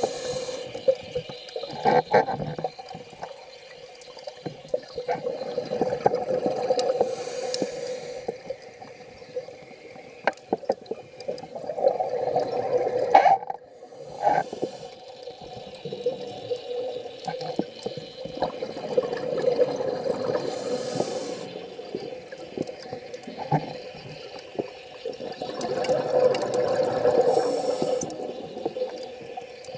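Scuba diver's regulator breathing underwater: gurgling exhaled bubbles and hiss that swell and fade every several seconds, heard through the camera's underwater housing, with a few sharp knocks.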